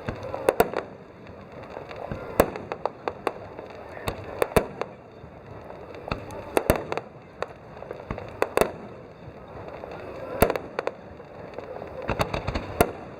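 Aerial fireworks shells bursting overhead: a string of sharp bangs, several in quick pairs, coming every second or two, with a quicker cluster near the end.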